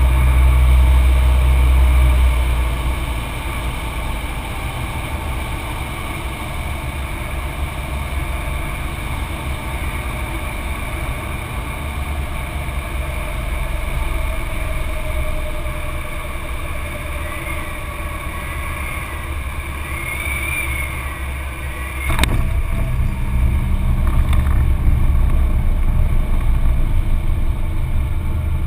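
Cessna 182's piston engine and propeller heard from inside the cockpit on final approach. The engine is pulled back to a lower, steady drone about three seconds in. About three-quarters of the way through a sharp knock comes, after which the low rumble is louder as the plane rolls out on the runway.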